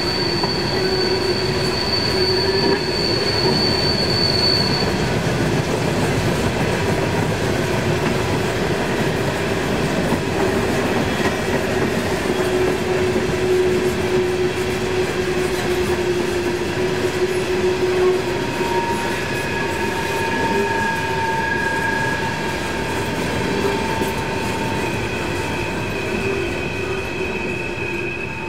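Coal hopper cars of a freight train rolling past on a sharp curve, a continuous rumble of steel wheels on rail. Over it run steady wheel squeals that come and go, the highest fading out about five seconds in.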